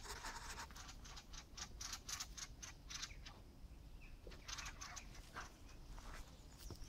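Faint footsteps and scuffing on a mossy, rocky forest floor: short scrapes about five a second for the first three seconds, then a few more about four and a half seconds in.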